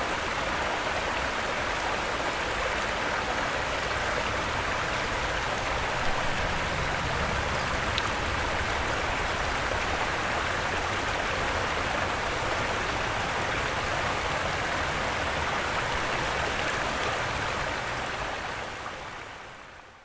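Steady rushing wash of flowing water that fades out over the last two seconds.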